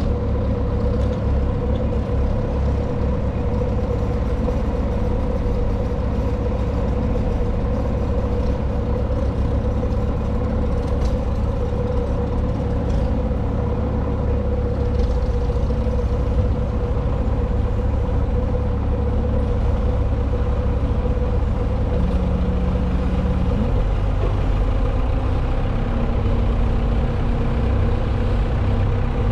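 Bobcat T190 skid-steer's diesel engine running steadily as it powers a Halverson 140B firewood processor, with a steady tone over the engine. The low engine note shifts slightly about two-thirds of the way through.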